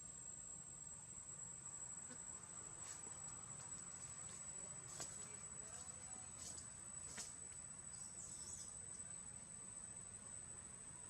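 Faint, steady high-pitched insect drone, with a few short sharp clicks between about three and seven seconds in and a brief wavering high sound about eight seconds in.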